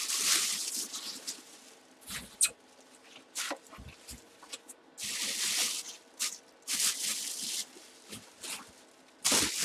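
Thin plastic bag crinkling and rustling in a few bursts as a football helmet is pushed into it by hand, with a few short light knocks and crackles in between.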